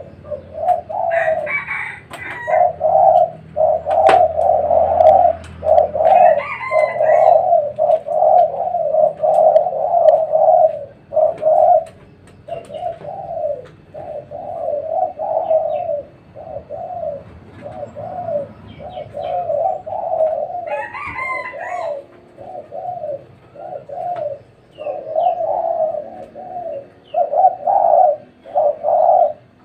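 Several spotted doves cooing. Their short, repeated coos overlap in a near-continuous chorus with only brief gaps.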